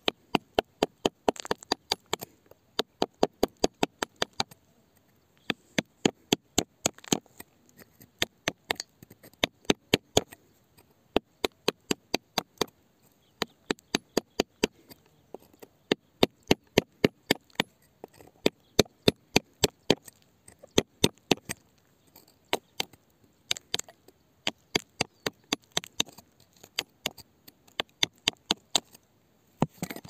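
A metal bar striking and digging into gravel and rock, sharp clacks about two to three a second in runs with short pauses.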